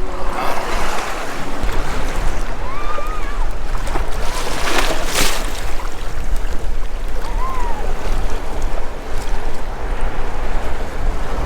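Wind rumbling on the microphone over water lapping at a kayak, with a brief louder rush about five seconds in and a few short, high chirps.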